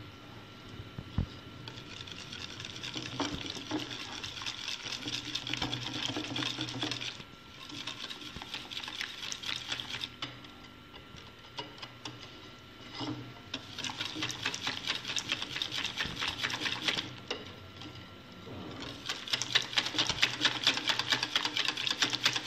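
Wire whisk beating crêpe batter in a glass bowl: quick, even strokes with the wires ticking against the glass, in several spells with short pauses between.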